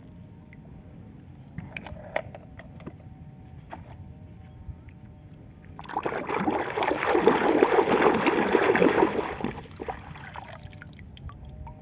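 Water splashing loudly for about four seconds, starting a little past the middle, with a few light clicks and taps before it.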